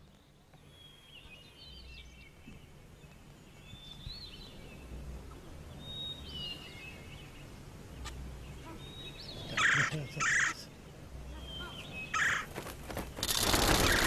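Crested ibises at their roost calling: faint scattered calls at first, then loud harsh calls in short bursts from about ten seconds in, and a dense burst of calling near the end as the flock takes off from the tree.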